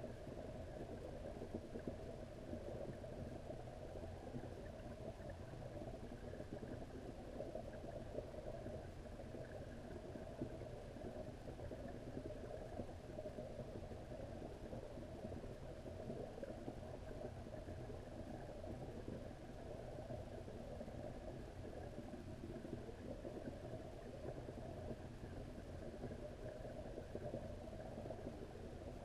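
Steady low rumbling and hiss of pond water, picked up by a camera held underwater in a koi pond.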